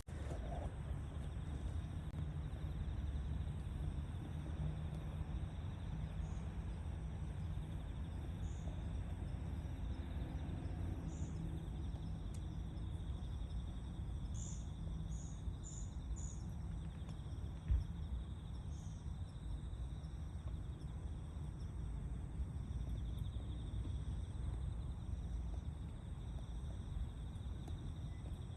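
Outdoor background noise: a steady low rumble with a faint continuous high insect drone and scattered short high chirps, several in a quick run midway. One sharp thump about eighteen seconds in.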